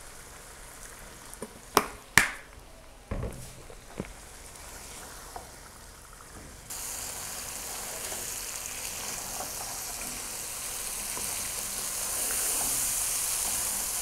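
Mutton and spice masala sizzling as it fries in a non-stick wok and is stirred, with a few sharp clicks of the utensil against the pan in the first four seconds. About seven seconds in, the sizzling jumps louder and stays steady.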